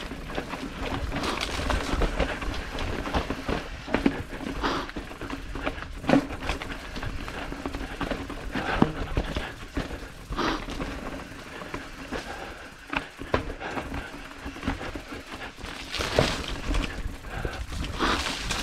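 Mountain bike riding over rough trail: wind buffeting the microphone and tyre noise, with frequent sharp knocks and rattles from the bike over bumps.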